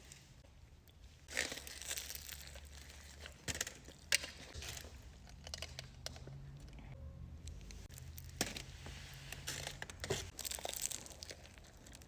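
Foil wrapper of a Chipotle burrito crinkling and tearing in irregular rustles, louder in a few short bursts, as the burrito is handled and unwrapped between bites.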